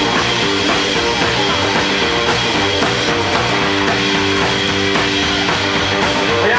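Rockabilly band playing live: electric guitar, acoustic guitar, upright double bass and drum kit.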